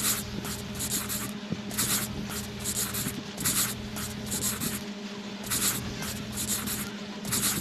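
A crayon colouring back and forth on a colouring-book page, in short bursts of strokes roughly once a second, over a steady low hum.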